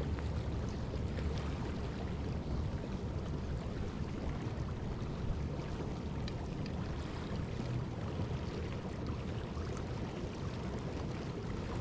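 Open river current flowing steadily past an icy bank, with a low rumble of wind on the microphone.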